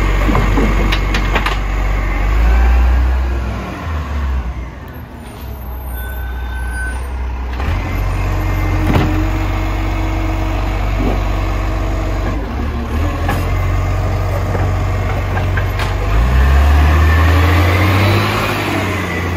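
Garbage truck's diesel engine running, its revs rising a few seconds in and again near the end, with one sharp knock partway through.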